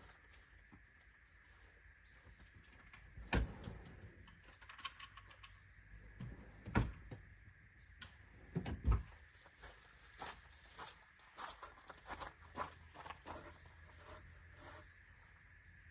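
Steady high-pitched drone of insects, with a few sharp knocks about three, seven and nine seconds in and lighter clicks after them.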